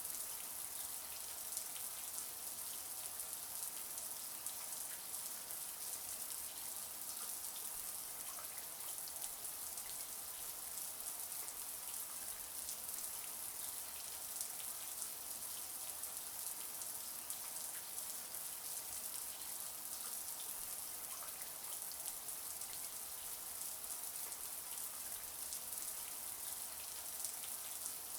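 Shower water running steadily: an even hiss of spray with a patter of droplets hitting a surface.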